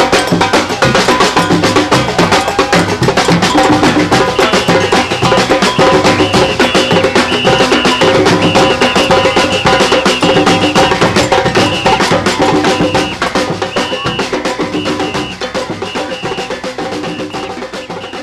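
Music with fast, busy percussion and pitched notes over it, fading out over the last few seconds.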